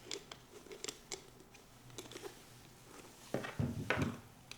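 Small metallic clicks and scrapes of a hex key and axle screws being worked into a skate's wheel, with a couple of louder knocks from handling the skate about three and a half seconds in.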